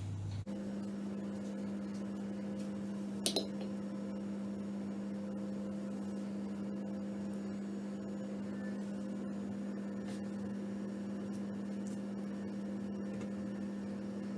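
Steady low electrical hum with no other activity, broken once by a brief click about three seconds in.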